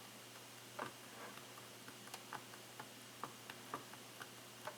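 LG G5 power button being pressed over and over, giving faint, irregular clicks a few times a second, as rubbing alcohol is worked under it to free a button that had stopped responding.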